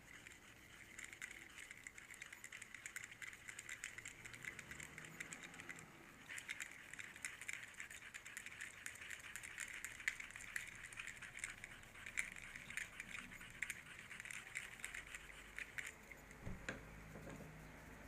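Metal lure hook being sharpened, drawn in rapid short scraping strokes that stop about sixteen seconds in, followed by a single knock.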